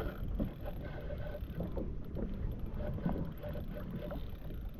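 Wind rumbling on the microphone over water lapping against a fishing kayak's hull, with scattered faint short sounds.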